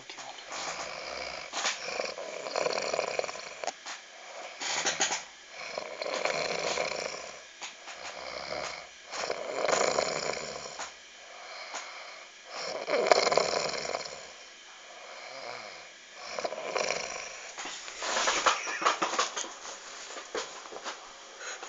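Snoring: heavy snores, one every two to three seconds, each swelling and fading, unevenly spaced.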